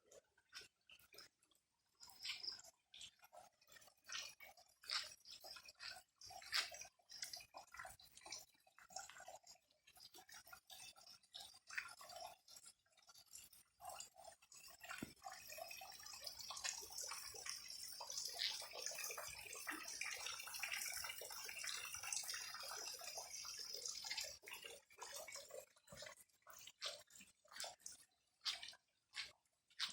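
Faint water dripping and splashing in irregular ticks. A steadier hiss of splashing water builds from about halfway and fades away a few seconds before the end.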